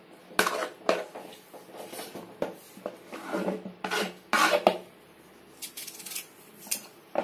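Kitchen knife cutting peeled potato into small cubes on a cutting board: an irregular run of knocks and short slicing strokes of the blade against the board, loudest a little past halfway, with a lull shortly after.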